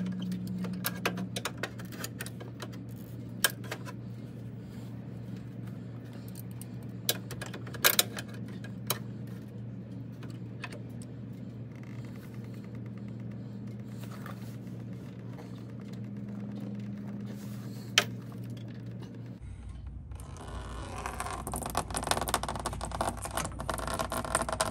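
Pliers working the plastic radiator drain petcock of a Dodge Charger SRT Hellcat, giving scattered sharp clicks and scrapes over a steady low hum. About twenty seconds in, the petcock opens and coolant starts pouring out in a steady splashing stream.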